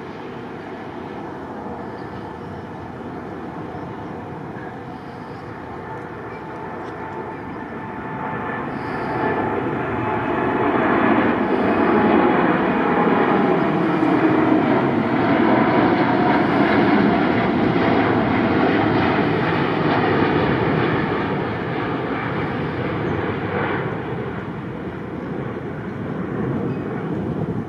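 Airliner passing: its engine noise swells from about eight seconds in, stays loud through the middle, then slowly fades.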